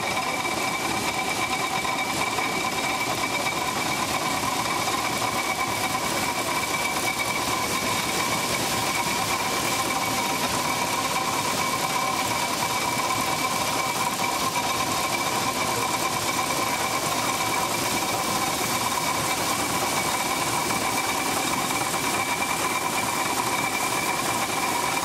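Belt-driven Sandwich corn sheller running steadily while shelling ear corn, a continuous mechanical clatter with a steady high whine from the turning machinery.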